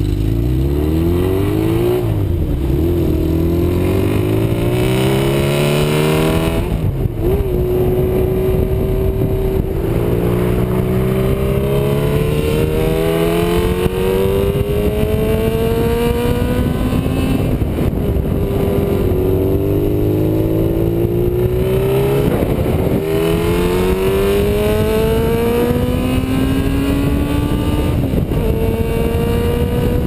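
1992 Yamaha XJ600 Seca II's air-cooled inline-four running through a Cobra F1S aftermarket exhaust while the motorcycle is ridden. It accelerates through the gears, with the pitch climbing steadily and then dropping back at each of about five upshifts.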